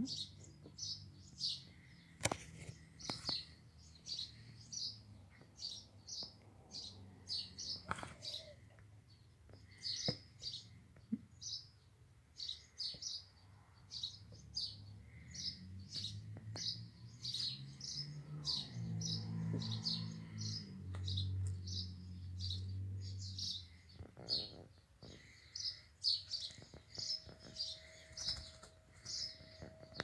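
Bird chirping over and over, short high chirps coming about one or two a second, with a few soft clicks among them.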